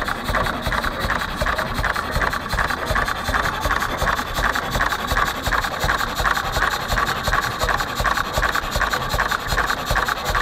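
1927 Reilstad single-cylinder engine running steadily, an even, rapid beat of firing strokes.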